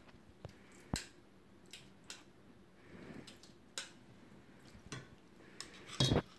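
Metal fork scraping and tapping inside a tin can while scooping diced tomatoes into a stainless steel mixing bowl: scattered light clicks, with a louder clatter about six seconds in.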